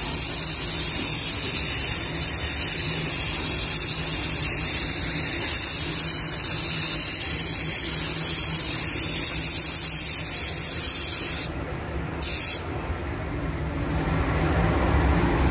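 Automotive spray gun spraying clearcoat onto a car fender: a steady hiss of atomising air and paint. About 11 seconds in the hiss cuts out, comes back for a moment, then stops again, leaving a low hum.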